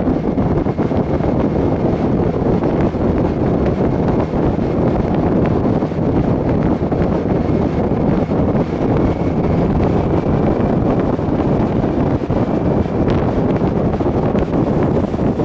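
Steady wind rushing and buffeting over the microphone of a motorcycle at road speed, blended with the ride's road and engine noise.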